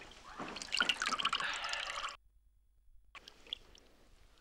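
Bathwater splashing and dripping as a man's head comes up out of a wooden tub, cut off suddenly about two seconds in, then faint drips.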